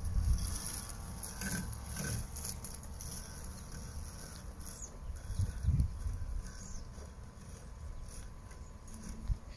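Husqvarna Automower 430XH robotic lawn mower running across grass, a faint steady hum under a low rumble, with a few dull low thumps about the middle and near the end.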